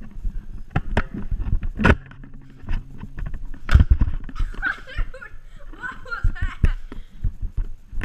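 Irregular thumps and knocks of someone moving fast on a wooden floor, with handling knocks from the plastic Nerf blaster; the loudest knocks come about two and four seconds in. Short, indistinct voice sounds come midway.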